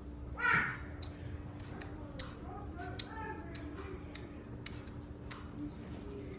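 A short high cry about half a second in, then a run of scattered sharp clicks and taps, with faint voices in the background over a steady low hum.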